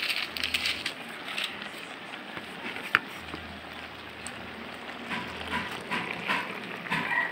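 Water spinach simmering in coconut milk in an aluminium wok, giving a steady crackling hiss with scattered ticks and one sharp click about three seconds in.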